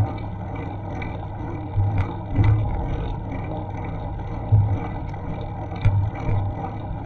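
Bicycle riding noise picked up by a bike-mounted action camera: a steady rush of wind and rolling noise, with low thumps at irregular intervals, about five of them.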